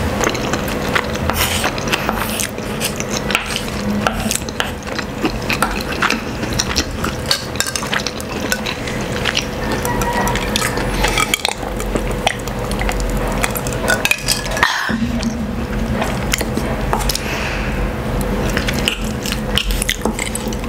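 Close-miked utensil sounds: a metal fork and a wooden spoon clicking and scraping on a wooden board while canned sardines are broken up, with many short clicks throughout.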